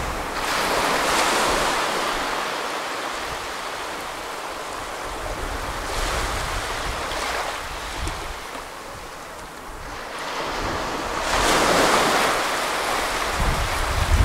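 Small waves breaking in the shallows and washing up a flat sandy shore: a steady surf hiss that swells three times, about five seconds apart.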